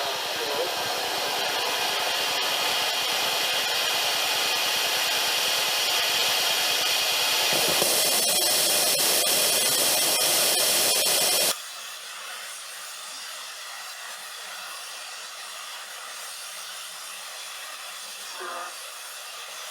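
Full Cat nitrous-alcohol liquid rocket motor on a static test stand firing with a loud, steady hiss. It grows harsher about 7.5 seconds in and cuts off abruptly a few seconds later, leaving a faint hiss. In this failed test a burst fuel line sprayed alcohol out the sides while the nitrous blew out through the nozzle.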